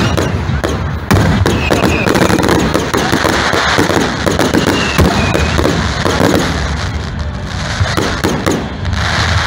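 Fireworks display: a dense, continuous run of bangs and crackling from aerial shells bursting overhead.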